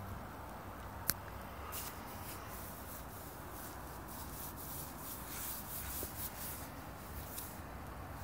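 Faint rustling and scuffing with one sharp click about a second in, over a low steady background rumble.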